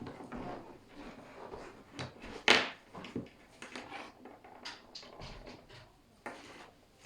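Batteries being handled and pressed into a plastic battery holder: a string of small clicks and knocks, with one sharp click about two and a half seconds in.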